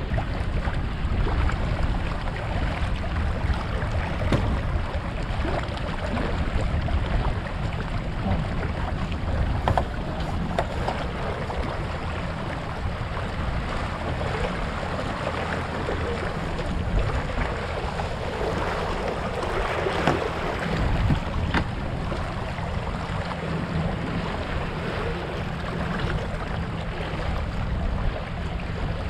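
Water rushing and splashing along the hull of a small sailboat under way, with wind buffeting the microphone in a steady low rumble.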